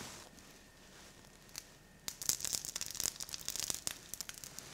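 Pancakes frying in butter in an electric frying pan, sizzling and crackling with dense irregular pops that start about two seconds in and die down near the end.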